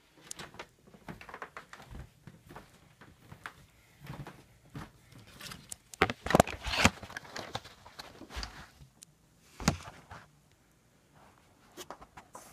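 Scattered knocks, taps and scuffing in a small room, with a louder cluster of clattering about six to seven seconds in.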